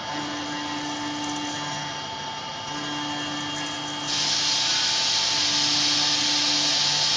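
CNC router working aluminum: a steady high machine tone runs throughout, while a lower hum switches on and off every two seconds or so, like the axis motors moving. About four seconds in, a loud hiss sets in and holds.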